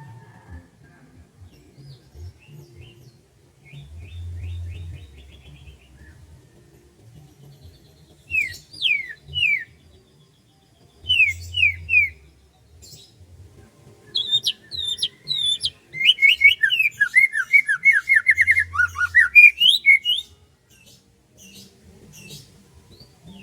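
Birds singing: several short groups of two or three quick, downward-sweeping whistled notes, then a dense, rapid run of chattering notes lasting about four seconds, the loudest part, before the song thins out.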